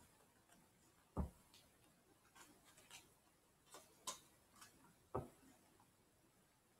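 Faint clicks and snaps of playing cards being handled and fanned out, with two dull thumps, one about a second in and one about five seconds in.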